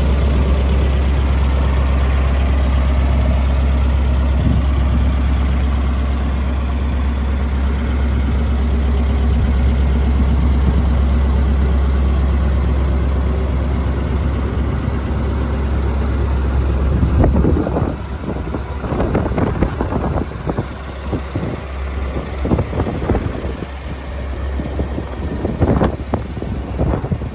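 1942 Ford truck's flathead V8 idling steadily with a deep, even drone. About two-thirds of the way through, the sound turns uneven and gusty over the quieter engine note.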